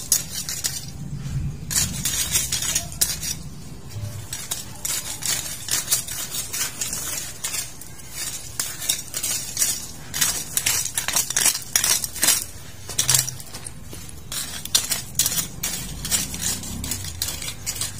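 Irregular series of sharp scrapes and clicks, several a second, from weeding by hand among pumpkin plants: soil, stems and roots being pulled and scraped.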